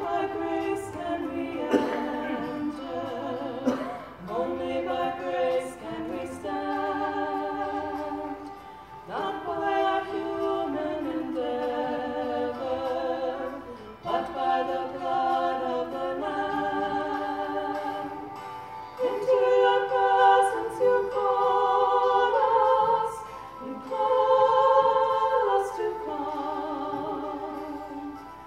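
Two women singing a slow song together, holding long notes with vibrato and pausing briefly between phrases.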